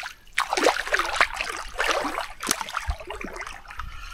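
Water splashing and sloshing in a string of irregular splashes, with short bubbling trails after each.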